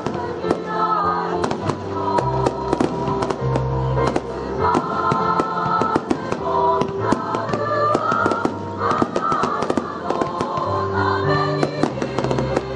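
A choir singing held, slowly changing chords, with fireworks crackling and popping in rapid, dense bursts over the singing.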